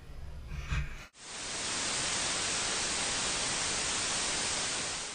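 About a second in, the sound cuts sharply to a steady hiss of white-noise static, a TV-static sound effect, which stops abruptly near the end.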